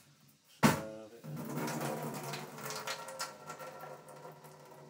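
Washing salad at a stainless steel kitchen sink: a sharp clank about half a second in, then a steady rushing noise that fades toward the end.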